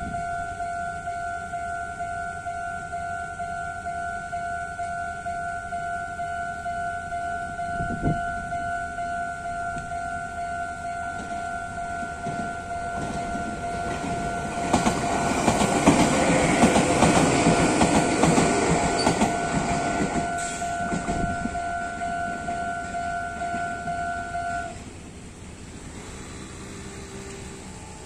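Japanese railway level-crossing warning bell ringing its steady two-tone "kan-kan". A train passes through from about halfway, rumbling with clattering wheels. The bell stops about three-quarters of the way through as the crossing clears.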